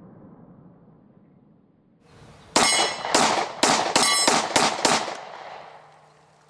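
Converted 10mm Hi-Point straight-blowback pistol fired in a rapid string of about seven shots, starting about two and a half seconds in, with a metallic ringing over the shots.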